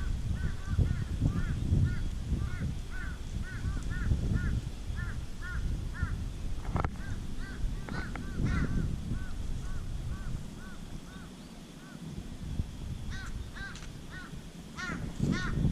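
A bird calling over and over, a short arched note about twice a second, coming thicker near the end, over a low uneven rumble.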